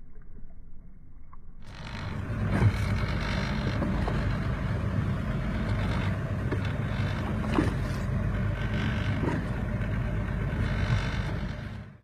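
Boat engine running steadily under way, with rushing wind and water noise; it comes in suddenly about two seconds in.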